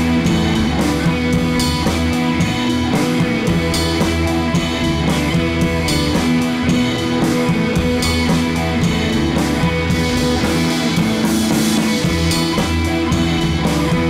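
Background rock music with guitar and drums, playing steadily.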